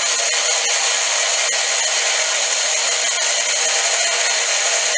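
Electric blender motor running steadily at full speed, chopping greens into pesto.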